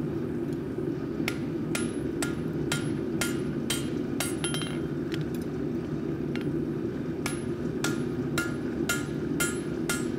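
Hand hammer striking a hot axe head of rail steel on an anvil, about two ringing blows a second, with a pause of a couple of seconds in the middle. Underneath runs a steady low rushing noise.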